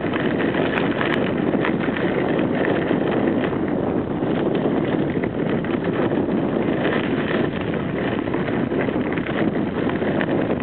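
Bicycle rolling along a gravel path: a steady crunch of tyres on gravel with small rattles and clicks, mixed with wind buffeting the microphone.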